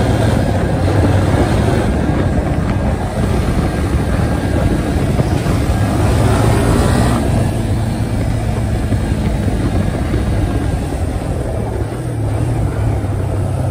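ATV engine running steadily at speed, heard on board over a gravel road with wind and tyre noise, and a brief rise in engine pitch about six to seven seconds in.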